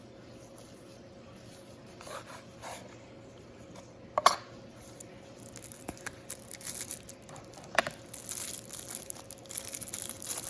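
A knife box being opened and its packaging handled: a few light knocks and a sharp click about four seconds in, then crinkling and rustling of wrapping from about eight seconds in.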